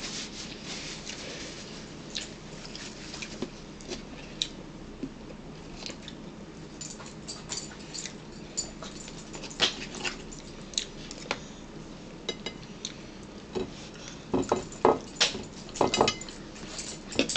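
Close-up sounds of people eating at a table: chewing and lip smacks, with scattered clicks of forks on plates. They grow into a run of louder smacks and clicks near the end.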